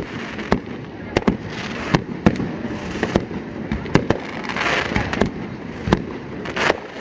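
Aerial fireworks going off: an irregular run of sharp bangs, with crackling hiss about four and a half seconds in and again near the end.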